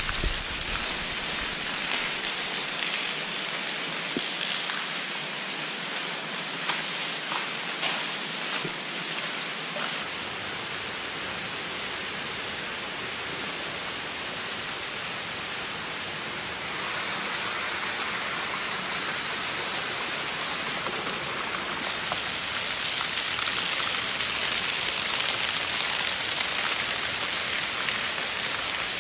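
Water running and dripping inside a concrete railroad tunnel, a steady rain-like hiss and patter of water streaming down the walls and onto the gravel floor. The sound changes abruptly a few times.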